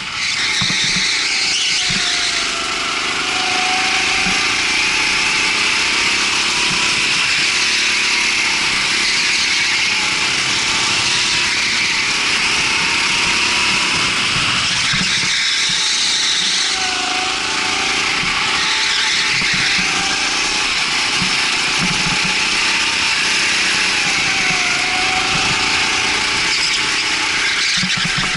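Rental go-kart engine revving up and down as it is driven, its pitch rising and falling repeatedly over a steady hiss, with one deep drop in revs about halfway through before it picks up again.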